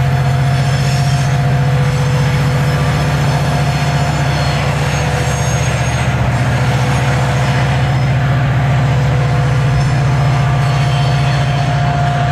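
A freight train rolling by at close range: a steady heavy rumble with faint, steady high tones over it.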